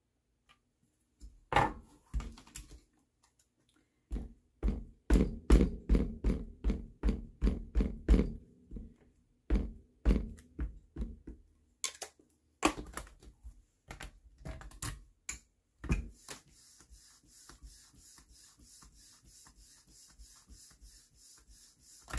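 Stamping-platform work with a clear stamp: a quick run of dull taps, two or three a second, as the stamp is dabbed with ink to re-ink it for a second impression. Scattered plastic knocks and clicks of the hinged lid follow, then a faint rubbing hiss while the closed lid is pressed down, and a click near the end.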